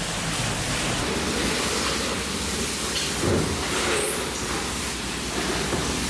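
Steady rushing, hiss-like background noise, with one soft low knock about three seconds in.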